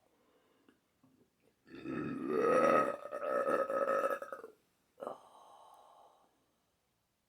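A long, loud burp lasting nearly three seconds, its pitch rising at the start, then a brief, much fainter sound about half a second later.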